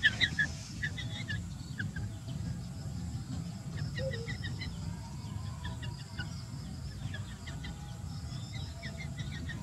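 Short, high bird chirps in scattered little clusters, thickest at the very start, over a steady low rumble.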